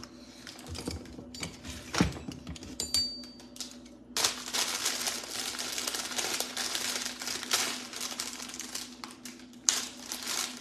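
Plastic produce bag of grapes crinkling and rustling as it is handled and cut with scissors, from about four seconds in for some six seconds. Before that, a sharp knock about two seconds in and a few light clicks.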